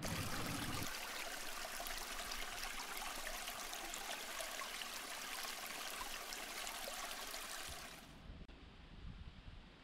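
Small shallow forest brook trickling over stones and leaf litter, a steady rush of water that cuts off about eight seconds in.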